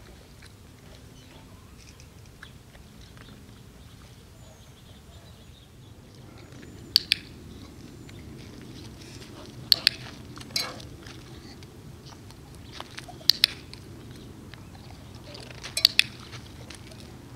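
Sharp clicks, mostly in close pairs, coming every few seconds, over a faint steady low hum.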